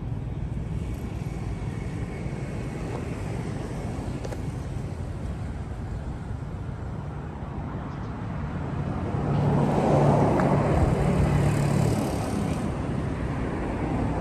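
A motor vehicle's engine running steadily, growing louder for a few seconds about two-thirds of the way through, then easing off.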